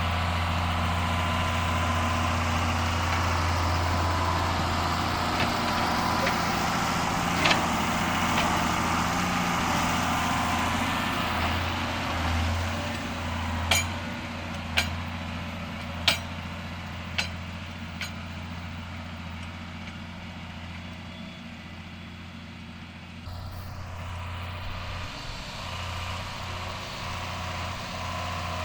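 John Deere 7610 tractor's six-cylinder diesel engine running steadily, with a few sharp knocks or clanks about halfway through. The engine sound drops away for a few seconds, then comes back up.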